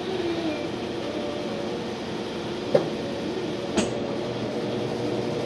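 Washing machine running, a steady mechanical rumble with faint whining tones and two short knocks a second apart near the middle.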